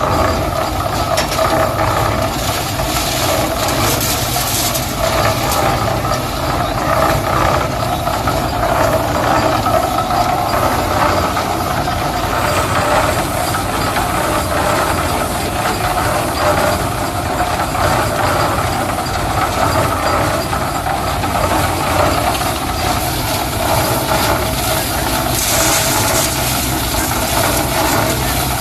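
Concrete mixer machine running, a steady mechanical noise that does not let up.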